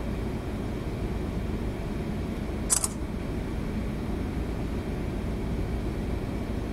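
Steady low rumble of a 1000-foot lake freighter under way, heard from inside the pilothouse. A single brief sharp click about three seconds in.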